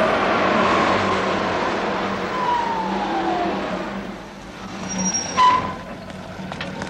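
Car driving in and slowing down, its engine and tyre noise dying away, with a short, high squeal about five seconds in.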